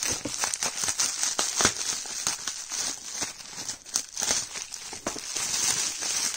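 Plastic bubble wrap crinkling and crackling without pause as a bubble-wrapped package is handled, cut into with scissors and pulled open.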